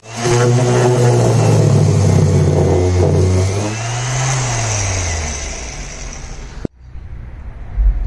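Bauer random orbital sander running on the charred wood edge of a beehive cover, giving it a light sanding. About four seconds in, the sander is lifted off and winds down, its pitch falling away.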